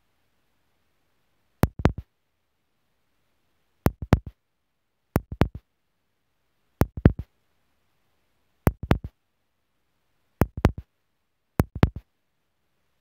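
Fireworks shells bursting: seven quick clusters of three or four sharp bangs each, at uneven gaps, with dead silence between the clusters.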